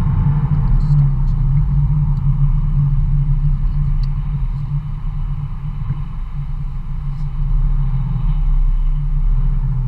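Engine and road noise of a vehicle being driven, heard from inside its cab: a steady low rumble.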